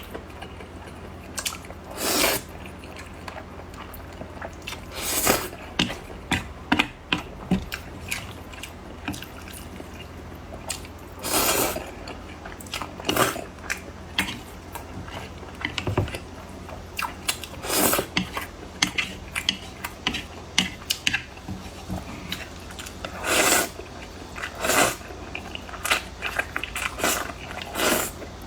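Close-miked eating: a person chewing and biting food, with irregular bursts of eating noise every second or so over a steady low hum.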